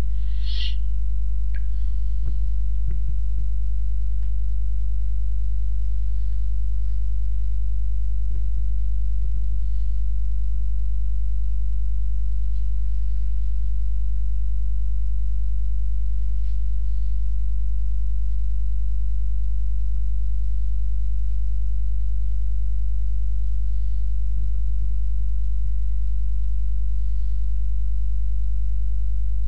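Steady low electrical mains hum with a stack of evenly spaced overtones, and a few faint clicks.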